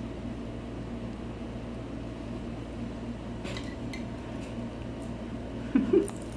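A fork and spoon scraping and clinking against a glass bowl of noodles as they are eaten, over a steady low hum, with one sharp clink about three and a half seconds in. A short child's voice comes near the end.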